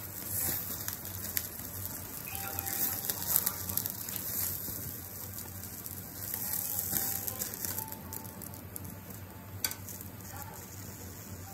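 Food coated in salt and tare sauce sizzling and crackling on a wire grilling net, with one sharper pop about ten seconds in.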